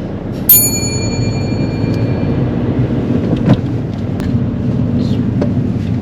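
Car engine and road noise heard inside the cabin as a learner's car drives off, a steady low rumble. About half a second in, a sudden bright ringing chime fades away over about two seconds, and a few faint clicks follow later.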